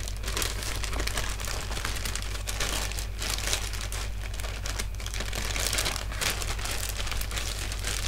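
Clear plastic bags and packets crinkling as they are handled and rummaged through, an irregular, continuous crackle.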